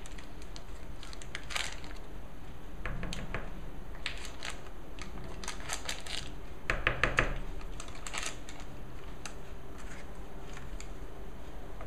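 Paper butter wrapper crinkling while a plastic spatula scrapes soft butter off it into a mixing bowl. The rustles and scrapes come in scattered bursts, loudest a little past the middle.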